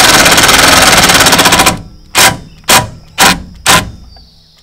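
Cordless impact driver hammering a stainless steel bolt into the supercharger's intercooler adapter plate. A loud, continuous rapid rattle lasts for nearly two seconds, then four short bursts about half a second apart.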